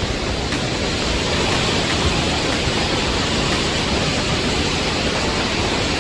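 Athabasca Falls' falling water rushing, heard up close as a loud, steady, unbroken noise.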